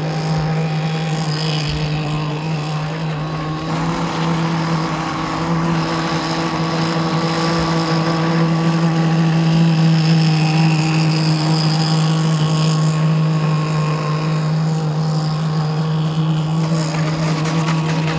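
Two-stroke CMB 26cc petrol engine of an RC racing boat running flat out with its CMB header and exhaust, its pitch holding steady. It grows louder as the boat passes close near the middle, then eases off.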